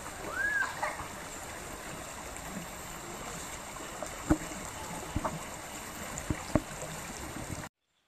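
Steady rush of flowing stream water, with a few sharp knocks in the second half and a brief rising-and-falling chirp near the start. The sound cuts off abruptly near the end.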